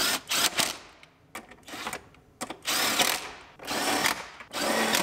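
Power drill/driver run in a series of short trigger bursts, each about a second long, driving in the bolts that hold down a car's center console.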